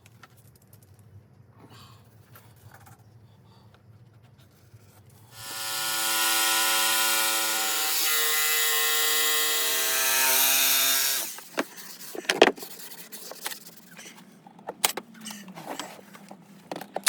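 A handheld power tool running for about six seconds on wood, its pitch sinking slightly as it takes the load, followed by sharp knocks and clatter of the wood being handled.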